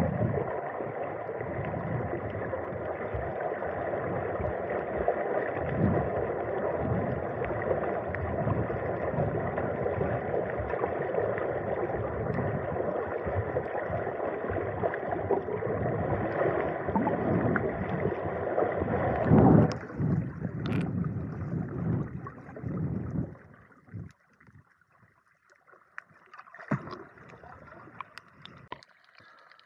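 Dense, muffled rushing and sloshing of water with a faint steady tone under it. About 20 seconds in it falls away to faint scattered splashes and clicks.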